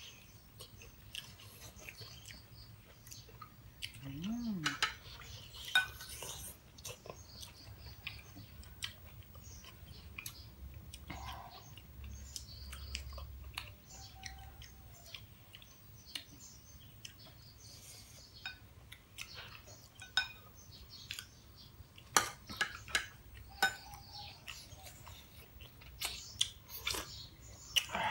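Mealtime eating sounds: people chewing cooked moringa pods, with scattered small clicks and clinks of a metal spoon against ceramic bowls and plates.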